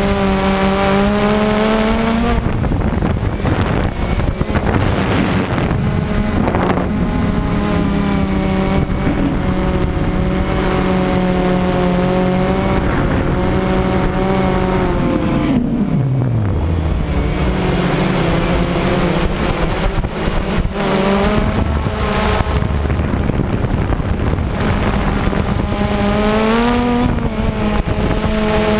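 A camera drone's electric motors and propellers whining steadily over wind rush, with several pitched tones that rise and fall as the throttle changes and one tone sliding sharply down about halfway through.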